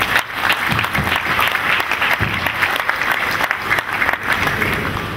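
Audience applauding, easing off near the end.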